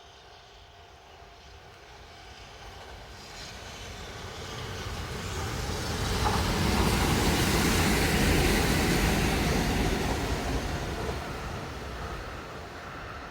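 Kintetsu Kyoto Line electric train passing by: it builds up over about six seconds, is loudest from about seven to ten seconds in, then fades away.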